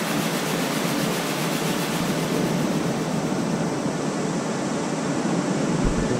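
Ocean surf breaking on a sandy beach: a steady wash of noise. A low rumble joins near the end.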